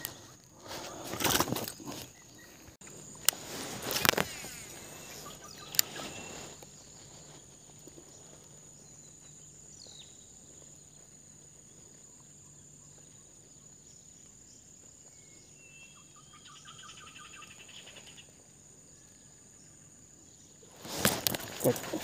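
Quiet outdoor ambience: a steady high-pitched insect drone, with a short trilled bird call a few seconds before the end. In the first six seconds come several sharp knocks and rustles from handling, and handling noise starts up again just before the end.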